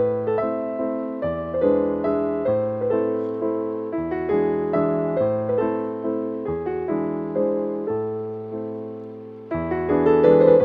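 Background piano music, with notes struck and fading over a changing bass line.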